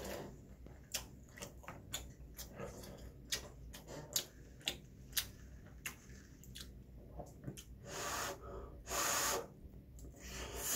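Close-up eating sounds: a run of short, sharp clicks from chewing and chopsticks. Around eight and nine seconds in come two longer breaths, the second the loudest sound.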